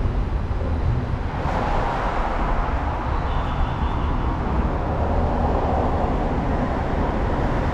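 Steady train noise: a low rumble with a rushing hiss that grows louder about a second and a half in.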